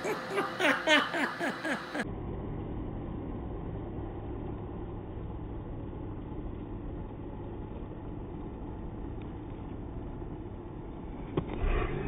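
iRobot Roomba robot vacuum running across a rug: a steady whir of its motor and brushes with a low hum. In the first two seconds a quick run of short sharp sounds that fall in pitch lies over it, and near the end come a few louder knocks.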